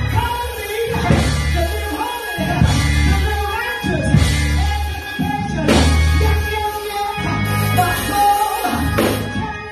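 Gospel music with singing, over held bass notes and sharp beats.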